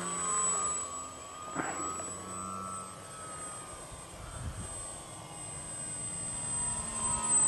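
Radio-controlled flying-wing model plane's propeller motor whining steadily in flight, the pitch shifting slightly as it passes and turns.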